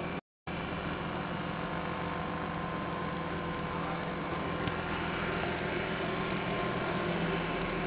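A boat's engine running steadily, a constant hum with a few steady tones over a haze of noise; the sound cuts out completely for a moment just after the start.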